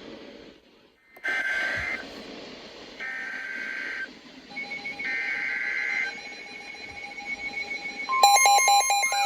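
Emergency Alert System SAME header: three screeching digital data bursts about a second each, a second apart, over radio hiss, announcing a new Winter Storm Warning. About eight seconds in, a louder electronic alert tone starts.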